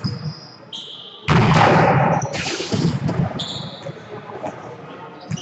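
Indoor volleyball play on a gym court: a sharp knock of the ball being struck, short high squeaks of sneakers on the court floor, and a loud burst of players' voices about a second and a half in.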